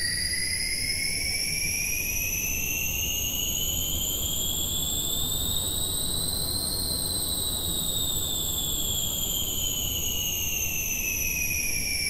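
White noise from a Reason synth run through a PH-90 phaser, making a steady wind-like hiss. The phaser sweep rises for about seven seconds, then falls again: a rising-and-falling air riser effect.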